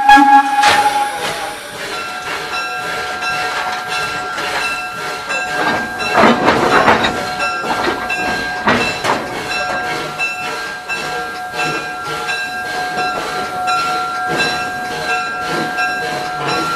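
Caboose rolling on street track as it is shoved by a steam tank locomotive. A steady high squeal of several held tones runs over a regular clicking beat of about two a second, with a louder rush of noise about six to seven seconds in.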